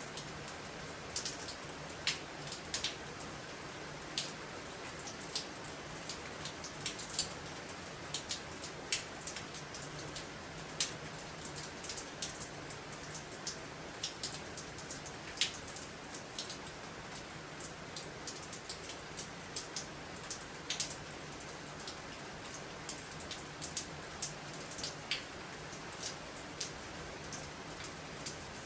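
Steady rain falling through the night during a storm, a constant hiss with many separate drops landing as sharp, irregular ticks.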